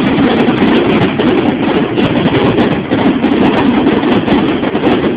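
Fireworks going off in a dense, continuous barrage: a steady loud crackling rumble with many sharp cracks and no pause.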